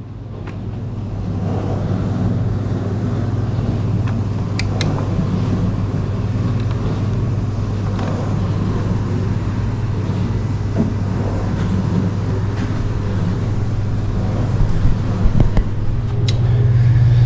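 Heat pump equipment running with a steady low electrical hum, with a few sharp ticks and taps about five seconds in and again near the end.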